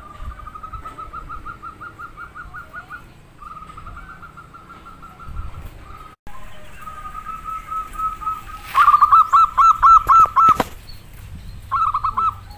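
Zebra doves (perkutut) cooing: soft rolling trills at first, then a louder run of about seven clipped coos in quick succession near the end, and a short burst just after.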